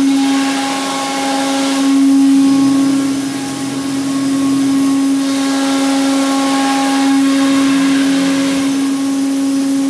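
Omnitech CNC router spindle running at a steady high whine while the bit cuts parts out of a white-faced cabinet panel, over a constant rushing noise. The sound swells about two seconds in and dips briefly a second or so later.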